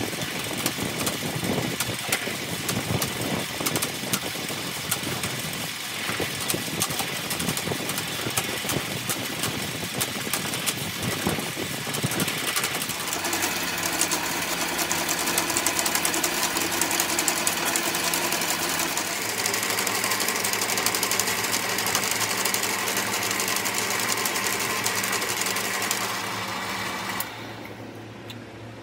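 Belt-driven coil winding machine running, winding enamelled copper wire onto a transformer bobbin: rattly at first, then a steady hum and whine from about halfway. It stops about a second before the end.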